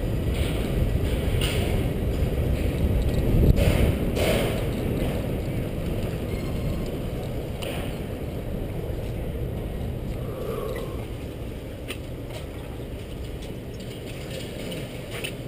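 Bicycle freewheel ticking as the rider coasts, over a low rumble of tyres on brick pavers that eases off as the bike slows to a stop.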